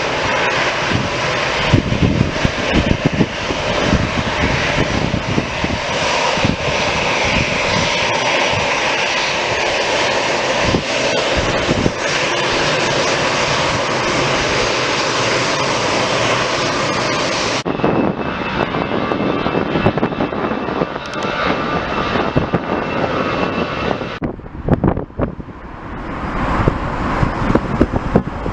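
Aircraft engines running loud, a steady rush of noise with a high whine in it, with wind buffeting the microphone. The sound changes abruptly about two-thirds of the way through and dips briefly near the end.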